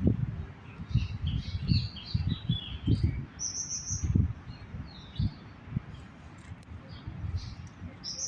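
Birds chirping in short, high calls, bunched mostly in the first half and again at the very end, over repeated irregular low rumbling thumps.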